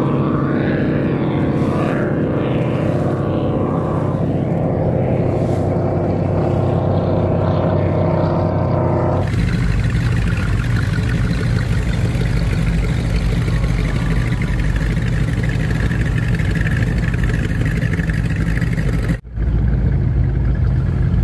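Performance powerboat engines running. For the first nine seconds there is a steady engine drone; then the sound changes to a deep, low rumble of a powerboat idling past close by.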